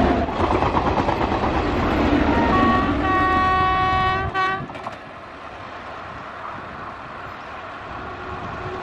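Passenger train passing close, its wheels and coaches rumbling loudly on the track. About halfway through a multi-tone train horn sounds for roughly two seconds and cuts off. After that a quieter, steady rumble of an approaching train continues.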